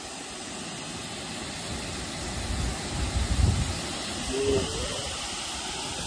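Waterfall rushing into a plunge pool, a steady even hiss of falling water, with some low rumble about three seconds in and a short pitched sound just past four seconds.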